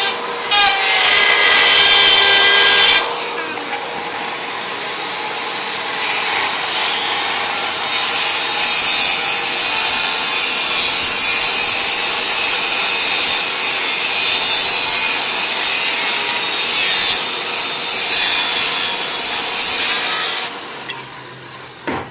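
A wood router runs with a steady whine for about three seconds. A Milwaukee circular saw then cuts lengthwise through a wooden log slab, a dense steady cutting noise that builds over the first few seconds, holds, and stops about two seconds before the end.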